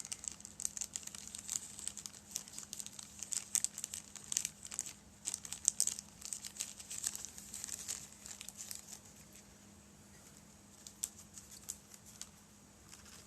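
A bag crinkling as a small, fragile 3D-printed model staircase is slid back into it: dense, irregular crackling for most of the first nine seconds, then only a few scattered crinkles.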